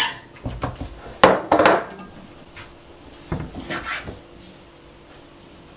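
Kitchen clatter: sharp knocks and rattles of cookware and a knife on a wooden cutting board as raw pork is cut into chunks. The knocks are loudest in the first two seconds, with a few more a little before the middle, then it goes quieter.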